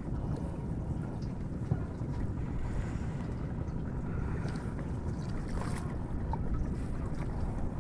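Steady low rumble of wind buffeting the microphone on an open river boat, with a few faint light knocks.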